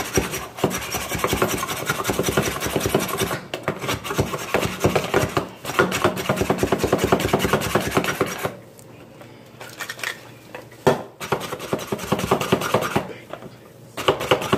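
Plastic plunger-style manual food chopper being pumped rapidly up and down, its blades clacking and crunching through dry cheese puffs. The strokes are dense and loud for the first two-thirds, turn quieter and sparser, stop briefly, and start again near the end.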